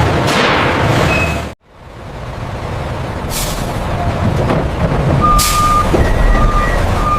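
A truck running, with two short air-brake hisses and a reversing alarm beeping about once a second near the end. The sound cuts out abruptly about a second and a half in, then comes back.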